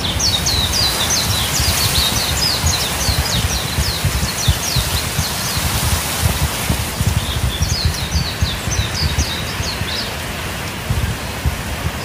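Wind in the trees, a steady rustle of leaves with a gusty low rumble of wind on the microphone, while a songbird sings a fast string of short, high, falling notes twice: for the first three seconds or so and again about seven seconds in.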